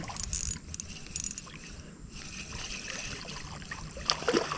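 Small spinning reel being cranked to bring in a hooked crappie, with faint clicks early on and a couple of sharper splashy sounds near the end as the fish nears the boat.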